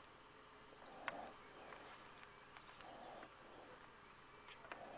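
Faint outdoor ambience with small birds chirping in quick high series. A lower sound repeats about every two seconds, and there is a sharp click about a second in.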